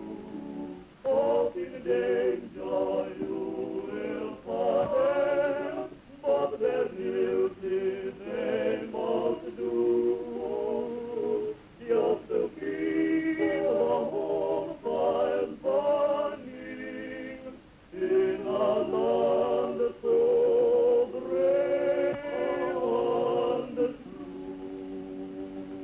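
A choir singing in harmony, phrase after phrase with short breaks between them.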